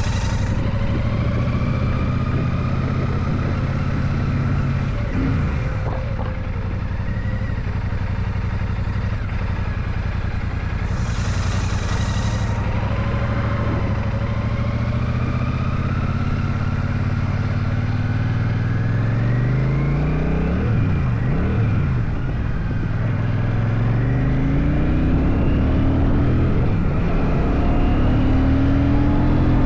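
Royal Enfield Shotgun 650's parallel-twin engine under way. It runs steadily, then rises in pitch as the bike accelerates past the middle, drops briefly at a gear change, and climbs again near the end.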